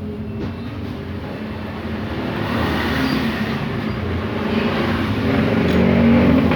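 A motor vehicle engine running, growing gradually louder over several seconds.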